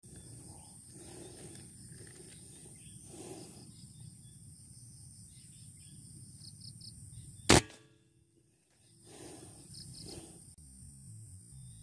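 A single sharp crack of an air rifle shot about two-thirds of the way through, over a steady high insect buzz. Just after the shot the sound drops out for about a second before the buzz returns.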